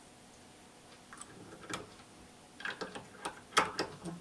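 Light clicks and taps of a Glock striker and its small metal parts being handled and set upright in a padded bench vise: scattered clicks starting about a second in, closer together and louder near the end.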